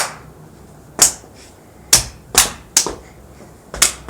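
A child clapping her hands about six times in an uneven rhythm, roughly one clap a second with a quicker pair in the middle, in a small room.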